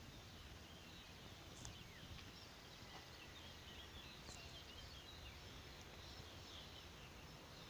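Faint birdsong: scattered short chirps from small birds over a low, steady outdoor background noise.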